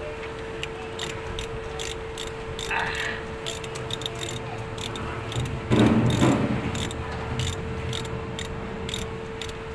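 Ratchet wrench clicking in short, irregular runs as a fitting on a forklift is tightened, over a steady hum. A louder clatter comes about six seconds in.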